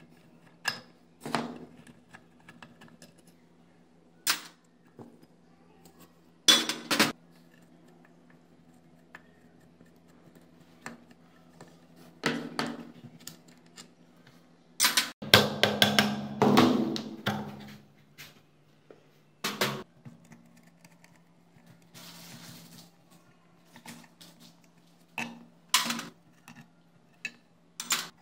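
Metal parts of an old rusted electric blower being handled during disassembly: scattered clinks and knocks, with a longer run of rattling clatter a little past halfway. A faint steady low hum runs underneath.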